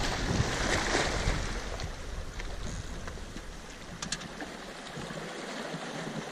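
Sea washing against shoreline rocks as a steady noisy wash, with wind rumbling on the microphone until about five seconds in. A couple of light clicks about four seconds in.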